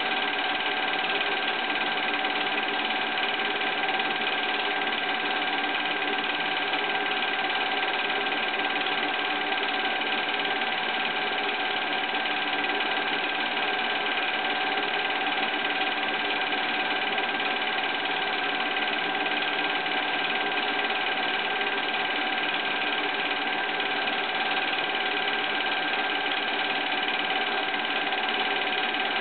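Home movie projector running steadily: a constant mechanical clatter with a fixed whine.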